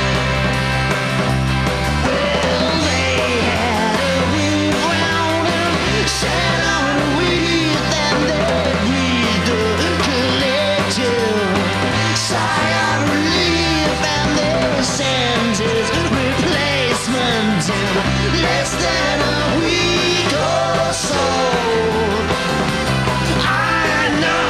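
Rock band playing a song on guitars and drums over steady low bass notes, with a lead line bending up and down in pitch over the top.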